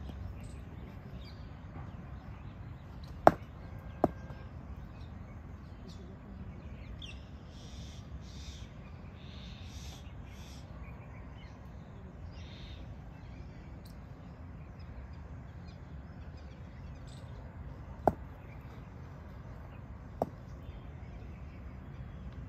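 Sharp knocks of a hard cricket ball in practice nets: two about three seconds in, less than a second apart, the first loud, and two fainter ones near the end, about two seconds apart, over steady low background noise.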